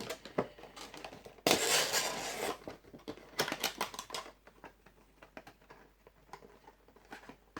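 Funko Pop vinyl figures and their boxes being handled and set down: scattered clicks and taps, with a louder scraping rustle about a second and a half in that lasts about a second, and a quick run of clicks around three to four seconds in.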